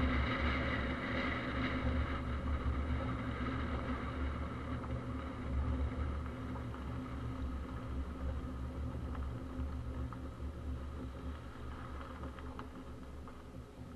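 Small SUV (Subaru Crosstrek) driving on a gravel and dirt road: a steady low rumble of tyre and road noise picked up by an outside-mounted camera, easing off gradually toward the end.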